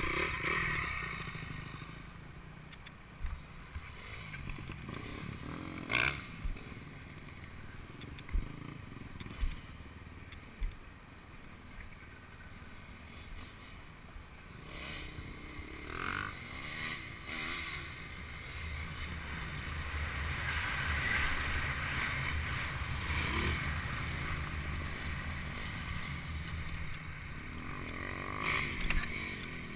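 Suzuki RM-Z250 dirt bike's single-cylinder four-stroke engine running, its pitch rising and falling with the throttle, heard muffled through a helmet-mounted camera's housing with wind rush and a few sharp knocks from bumps in the trail.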